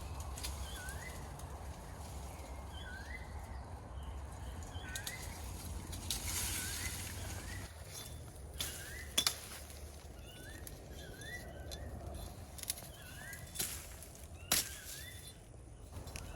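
A bird calling over and over, short rising chirps about once a second, with a pause in the middle. A few sharp clicks cut in, two of them loud.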